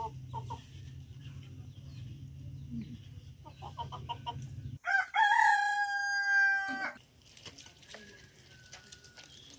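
A rooster crowing once, one long held call of about two seconds starting about five seconds in, with a few short clucks just before it.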